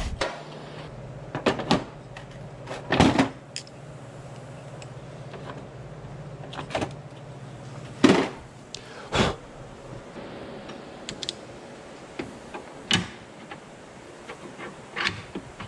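Scattered knocks and clanks of metal parts and tools being handled and set down on a steel workbench and fitted into a bench vise, over a steady low hum that fades about halfway through.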